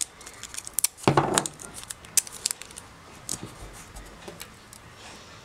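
Adhesive tape being pulled from the roll and torn, with sharp clicks and paper-handling noises as pieces are pressed down at the corners of a sheet on a table; the loudest is a short rasp about a second in.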